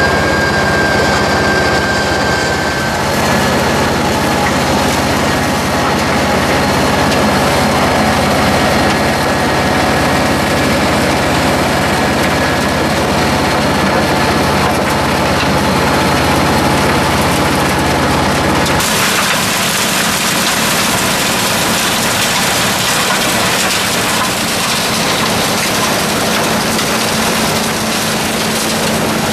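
Wirtgen WR 2400 cold recycler's diesel engine running hard while its milling rotor grinds up the asphalt road surface: a loud, steady mechanical din with a low engine hum under a dense grinding hiss. About two-thirds of the way through the low hum drops away and the harsher grinding hiss takes over.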